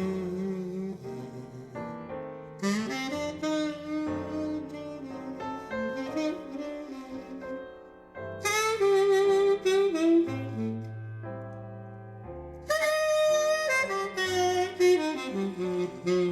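Instrumental jazz passage with saxophone leading over piano and a stepping bass line, played back through Elfton Elevator loudspeakers in a listening room.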